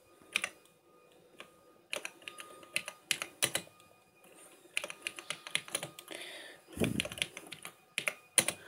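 Typing on the keyboard of a Texas Instruments Silent 700 data terminal: runs of sharp key clicks in short bursts, starting about two seconds in, with one heavier thump about seven seconds in.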